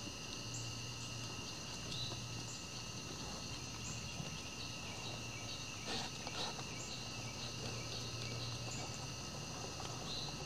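Evening insect chorus: steady high trilling at several pitches, with short chirps dotted through it. A couple of soft knocks come about six seconds in.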